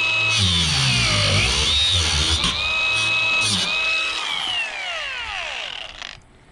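Milwaukee cordless angle grinder grinding off steel cap screws on corrugated barn roofing. Its high whine sags in pitch each time the disc bites into the metal. About four seconds in it is switched off and winds down.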